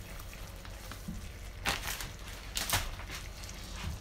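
Red silicone spatula stirring a thick cream sauce in a nonstick frying pan, with two short scraping sounds about a second and a half and two and a half seconds in, over a low steady hum.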